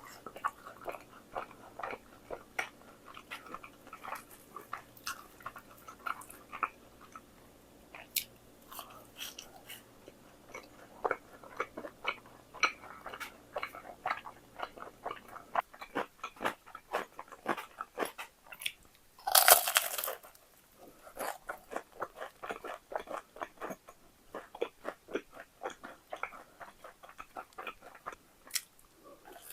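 Crispy fried chicken (Bburinkle) being bitten and chewed close to the microphone: a dense run of crackling crunches throughout, with one louder crunch burst about two-thirds of the way through. A faint low hum drops out about halfway.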